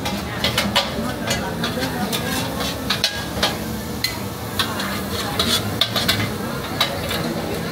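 Metal spatula clanking and scraping against a wok in quick, irregular strikes as pad thai is stir-fried, with food sizzling underneath.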